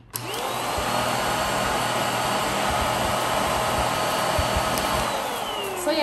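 Girnoor stick vacuum's 600 W motor switched on, spinning up with a rising whine, running steadily for about five seconds, then switched off and winding down near the end. For a vacuum the sound is kind of soft.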